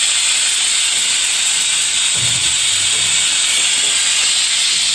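Pressure cooker with meat inside, venting steam from its valve in a loud, steady hiss. The cooker has come up to pressure and is giving its whistle.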